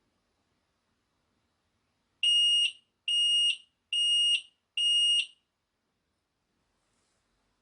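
Carbon monoxide alarm sounding four high-pitched beeps of about half a second each, in quick succession, then stopping: the four-beep carbon monoxide alarm pattern.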